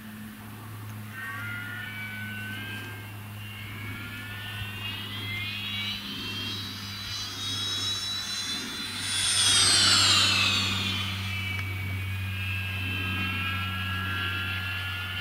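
Cappuccino all-fibreglass RC electric glider whining through the sky. The whine climbs in pitch and loudness to a peak about ten seconds in, then drops quickly in pitch as the model passes, and settles to a lower, steadier whine near the end.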